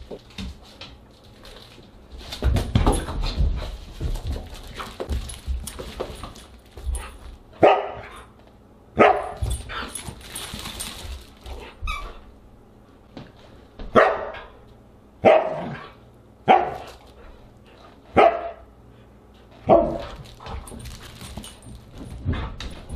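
Siberian husky barking in play, about seven single barks a second or so apart. There is scuffling of paws and toy on the rug in between.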